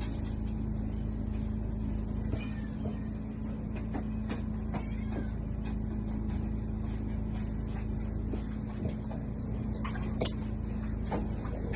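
Kitten mewing briefly a couple of times, with scattered clicks and rustles of handling over a steady low hum.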